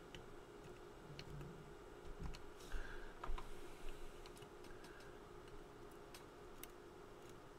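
Soft scattered clicks and ticks of tweezers and a soldering iron tip against a circuit board while a small surface-mount part is desoldered, with a few louder taps about three seconds in, over a faint steady hum.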